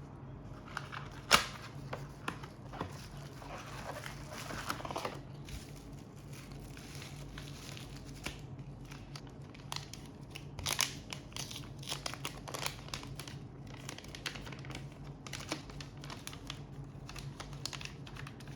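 Hands working on a phone repair: small sharp clicks, taps and scrapes with crinkling and tearing of thin plastic, like film or adhesive backing being handled and peeled. The loudest click comes about a second in. A steady low hum runs underneath.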